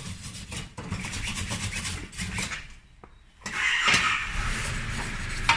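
Hand wire brush scraped hard back and forth over painted steel test pieces: a rough, rasping scrub that stops briefly about three seconds in and then starts again.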